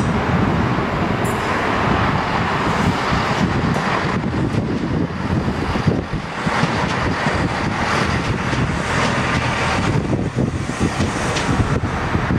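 Great Western Railway Class 166 Turbo diesel multiple unit running past, its underfloor diesel engines and wheels on the rails giving a loud, steady rumbling noise.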